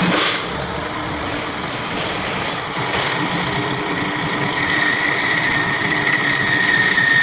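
CNC milling machine running with a steady mechanical hum, joined about halfway through by a steady high-pitched tone.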